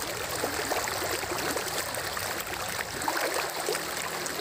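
Flowing river water babbling steadily: an even hiss dotted with many small trickling splashes.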